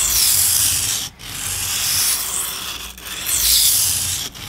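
Steel knife bevel of a Mora Bushcraft Forest scraped in full-length strokes across a coarse 240-grit Sigma Power Select II ceramic whetstone: a loud gritty hiss in long strokes of one to two seconds each, with short breaks between.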